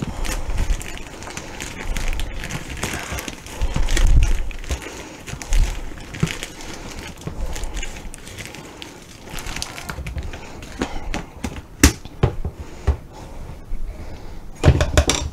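Metal spoon scooping brown sugar from a plastic container and working it into a plastic mixing bowl: scattered scrapes and rustles with sharp clicks and a few dull knocks.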